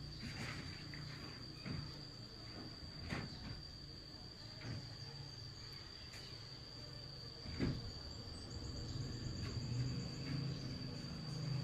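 Insects trilling steadily on one high unbroken note, with scattered light knocks and rustles and one sharper knock about two-thirds of the way through.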